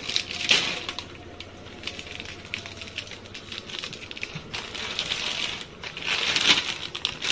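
Plastic Maggi instant-noodle packet crinkling and crackling as it is handled, in uneven bursts, with a louder stretch near the end.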